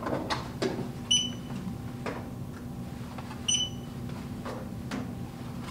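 Handheld barcode scanner giving two short high beeps about two and a half seconds apart, each one a good read of an item's barcode. Between them come light knocks and clicks of items being handled and set into the put wall's shelf bins, over a faint steady hum.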